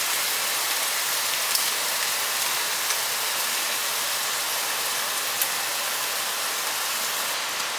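Bacon sizzling steadily in a hot frying pan, with a few light clicks as metal tongs turn the strips.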